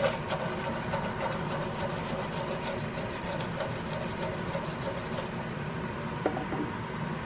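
Worn sandpaper rubbed rapidly back and forth by hand over the 45-degree bevel of a steel buckhorn rear sight held in a vise, several even strokes a second, stopping about five seconds in. A light click follows about a second later.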